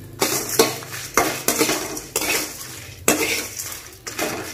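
Metal spatula scraping and clanking against a metal kadai as dried red chillies are stirred and roasted in a little oil: a run of about eight irregular scrapes.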